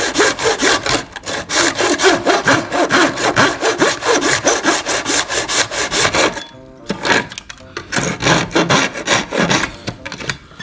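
Hand saw cutting with quick, even back-and-forth strokes, several a second, as a plastic battery adapter is cut down to fit. The sawing breaks off a little after six seconds in and starts again in shorter, less even strokes.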